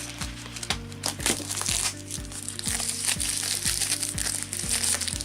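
Plastic seal wrap being torn and crinkled off a product box, over background music with a steady beat.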